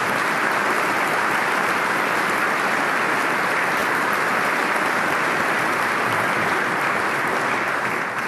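A large audience applauding, a steady even clatter of many hands, beginning to die away at the very end.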